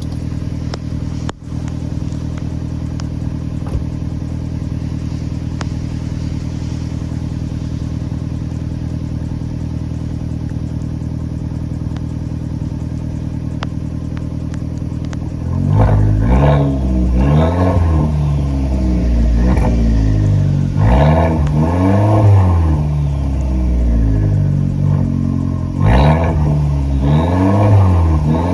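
2015 Fiat 500 Abarth's turbocharged 1.4-litre four-cylinder engine idling steadily at the tailpipes, then, about halfway through, revved in a series of quick throttle blips, each rising and falling in pitch.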